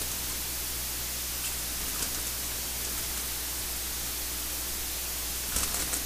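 Steady recording hiss with a low electrical hum, a few faint ticks, and a short rustle near the end.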